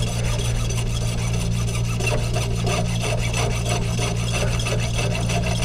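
Hand hacksaw cutting through a water heater's magnesium anode rod in quick, even back-and-forth strokes. The rod is seized and won't unscrew, so it is being cut in the middle to bend it and pull it out.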